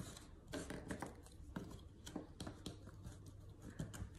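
Faint, irregular clicks and taps of large two-piece puzzle pieces being handled.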